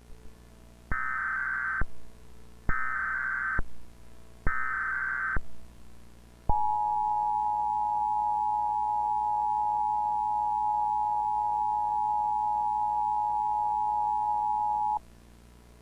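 Emergency Alert System test signal: three short bursts of SAME digital header data, each just under a second long with about a second between them. Then comes the EAS two-tone attention signal (853 and 960 Hz), held steady for about eight and a half seconds before cutting off.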